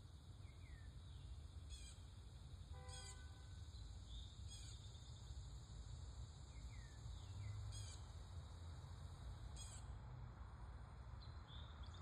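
Faint backyard birdsong: scattered short down-slurred chirps and brief high trills every second or two, with one fuller call about three seconds in. Under them runs a steady low rumble of distant traffic.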